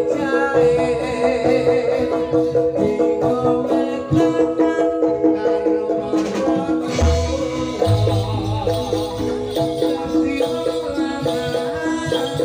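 Live Malang-style jaranan music: a gamelan-type ensemble of tuned metal percussion with drums, playing continuously, with deep drum or gong strokes about seven to nine seconds in.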